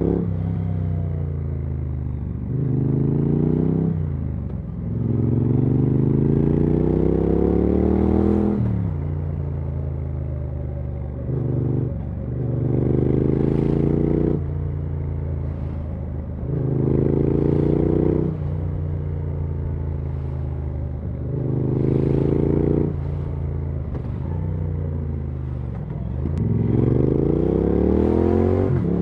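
2024 Triumph Speed Twin 900's parallel-twin engine and exhaust under way, pulling up through the revs with a rising pitch about six times, each pull followed by a drop back to lower, steadier running as the throttle eases off.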